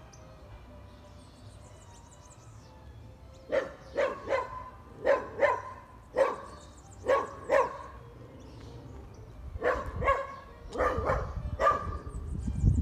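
A dog barking, about a dozen barks in quick twos and threes, starting a few seconds in.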